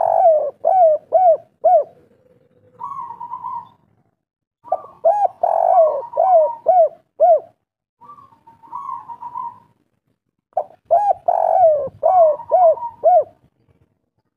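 Spotted dove cooing its territorial song, the type Indonesian keepers call 'kuk 3', three times over. Each phrase opens with a held coo and runs into a quick string of short, rounded coos, with shorter single coos in the pauses between phrases.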